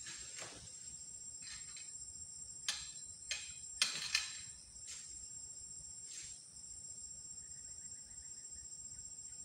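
Steady high-pitched drone of insects, with a handful of short sharp rustles or cracks breaking in, the loudest about four seconds in.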